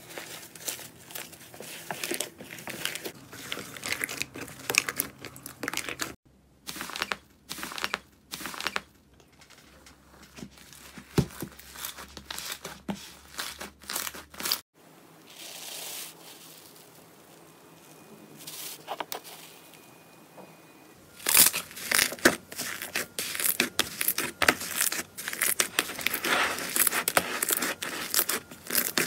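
Hands squeezing, stretching and pulling apart slime: dense runs of small sticky crackling clicks and tearing. The sound comes in several stretches that break off suddenly between clips, and it is busiest near the end.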